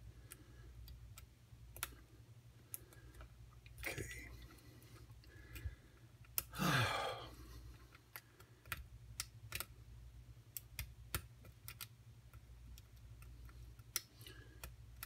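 Small, irregular metallic clicks of a lock pick working the pins of a pin-tumbler lock under tension, single-pin picking. A faint steady low hum runs underneath.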